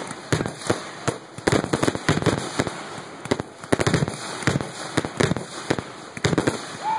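Fireworks display: a rapid, irregular string of sharp bangs and crackles from shells bursting, often several a second.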